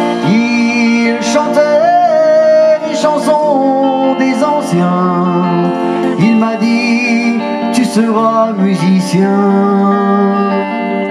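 A live folk-rock band plays an instrumental passage between verses, a lead melody line over electric guitar, bass, drums and fiddle.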